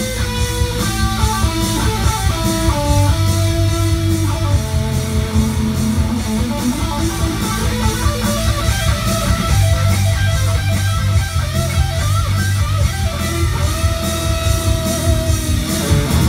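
Electric guitar playing an instrumental lead melody of single notes, a few of them held long, over a steady low rhythmic backing.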